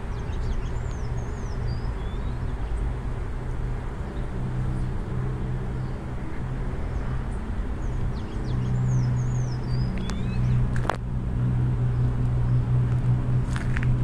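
A steady low drone that grows stronger in the second half, with small birds giving short, falling chirps several times and a couple of sharp clicks near the end.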